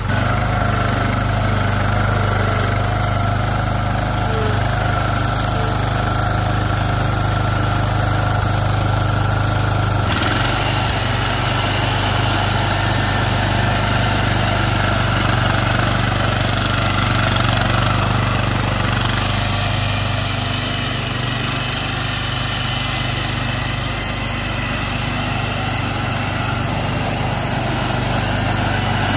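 Ariens Zoom 1840 zero-turn mower's 18 hp Kohler engine running steadily as the mower is driven through long grass.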